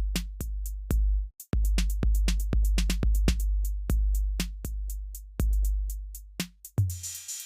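Electronic background music with a drum-machine beat: sharp hits over a deep sustained bass, which drops out briefly just after a second in, and a rising hiss-like sweep near the end.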